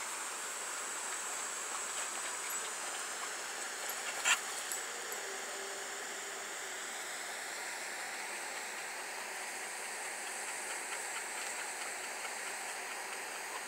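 Steady outdoor background noise, an even hiss, with one sharp click a little over four seconds in.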